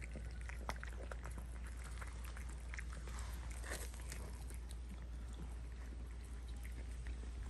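Cats chewing and biting scraps of food, a scatter of faint, quick wet clicks and crunches, over a steady low hum.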